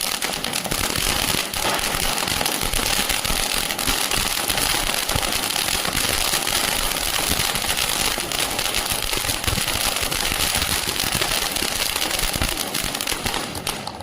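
Colour flower-pot fountain firework (anar) burning with a steady hiss of sparks and dense crackling, then stopping sharply near the end.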